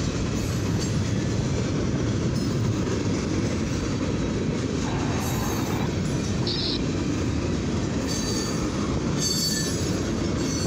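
Freight cars of a long mixed freight and steel train rolling past at about 35 mph: a steady rumble of steel wheels on rail, with short high wheel squeals a few times in the second half.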